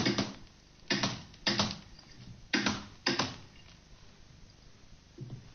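A brush loaded with paint slapping and scraping hard against a canvas: five sudden, rough strokes, each dying away quickly, coming about half a second to a second apart. A fainter dull knock follows near the end.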